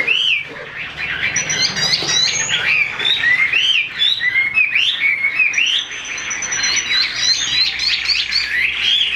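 Chinese hwamei (melodious laughingthrush) singing: a loud, unbroken run of varied whistled notes that swoop up and down, with a held high note about six seconds in.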